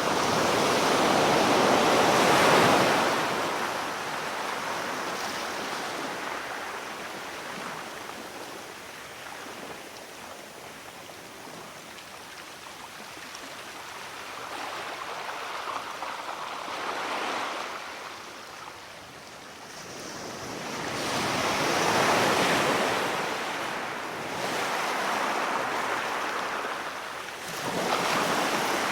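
Sea waves washing in and drawing back, rising and falling every few seconds, with the loudest surge in the first few seconds.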